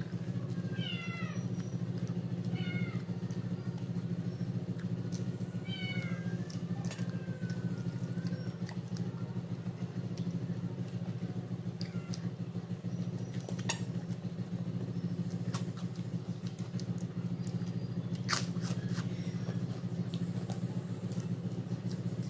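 An animal calling a few times in short calls that bend up and down in pitch during the first eight seconds, over a steady low hum. A few sharp clicks come later.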